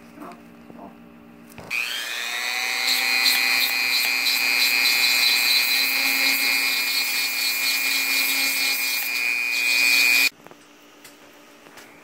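Handheld rotary tool spinning up about two seconds in, its high whine rising briefly and then holding steady while it grinds the quill end of a hawk tail feather for imping. It cuts off suddenly near the end.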